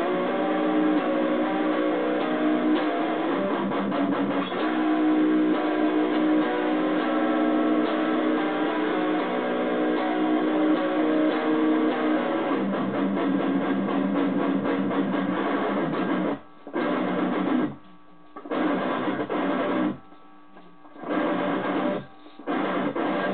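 Electric guitar played continuously. Near the end the playing stops dead several times for a moment and then comes back in.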